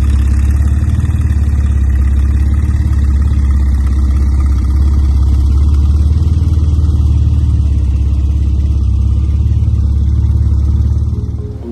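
Porsche 911 Turbo S (997.2) twin-turbo flat-six with a Fabspeed 700 kit exhaust, running at low revs as the car backs out. The exhaust gives a loud, steady deep drone that eases off near the end and is never revved.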